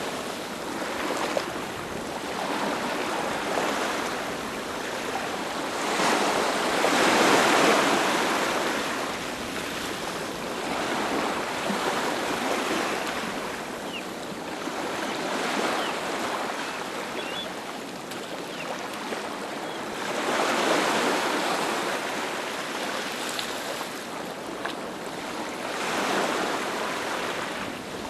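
Ocean waves breaking on a beach, each wave swelling up and washing back every four to five seconds.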